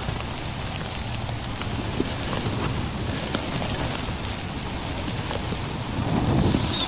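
Rain on a tent: a steady hiss with scattered drop ticks.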